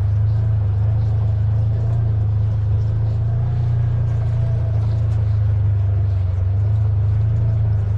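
Off-road buggy's engine running steadily as it drives along a trail, a constant low drone with no change in pitch.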